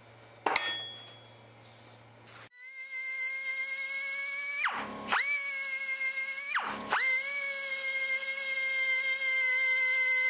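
A sharp knock about half a second in. Then, from about two and a half seconds, a small high-speed hand-held grinder runs with a steady high whine against a metal piece in a bench vise. Its pitch dips twice as the tool bites into the metal.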